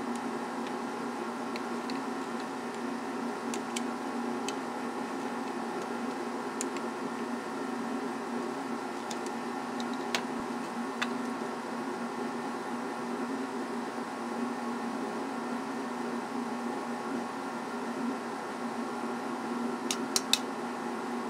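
Steady mechanical hum made of several held tones, with a few light metal clicks from hand tools working on a refrigerator compressor's cylinder head, two of them close together near the end.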